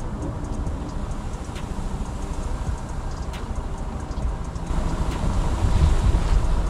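Motorcycle running on the road with a steady low rumble, growing louder about two-thirds of the way through.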